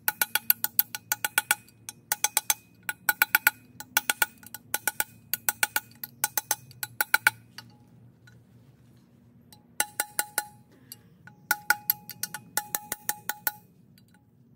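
Hammer blows on a steel drift, driving the wheel bearing out of a VW Beetle rear trailing arm's bearing housing. Quick runs of ringing metal strikes come about five a second, with a pause of about two seconds past the middle, then a last run that stops near the end.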